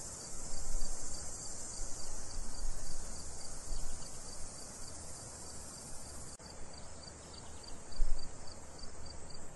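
Crickets chirping steadily in a dense high-pitched chorus with regular short pulses. There is a low rumble underneath, and a single low thump about eight seconds in.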